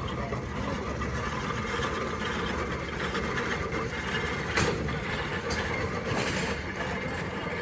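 Steam traction engine running as it drives slowly past, towing a loaded passenger trailer. A sharp knock comes about halfway through.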